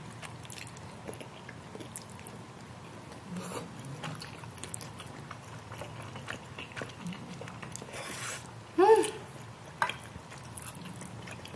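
A person eating thick udon noodles close to the microphone: wet mouth clicks, chewing and a few short slurps. About nine seconds in there is a brief rising voice sound, the loudest moment.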